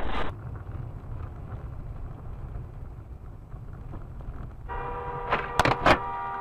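Low road and engine rumble inside a moving car, then a two-tone car horn held for about two seconds, with a few sharp knocks during it.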